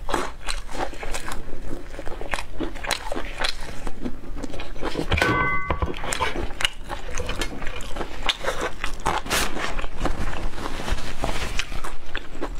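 Close-miked biting and crunchy chewing of crisp food, a steady run of irregular crackling crunches. A brief high tone sounds about five seconds in.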